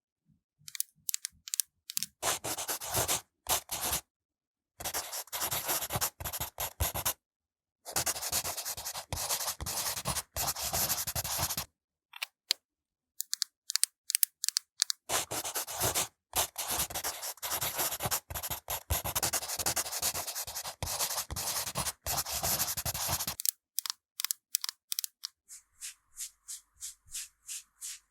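Makeup brushes and applicators scratching and rubbing over the rind of a green melon, in bursts of a few seconds broken by complete silence. Near the end comes a run of short, lighter strokes, about two a second.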